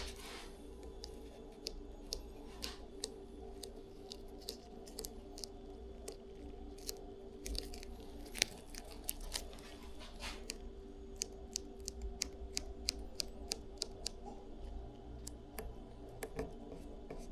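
Faint, scattered small clicks and taps of hands working an eye into place on a deer head form, over a steady low hum.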